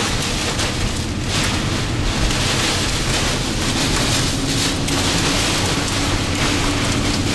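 Torrential rain and gusting wind beating on a moving car, heard from inside the cabin, over a steady low rumble from the car itself.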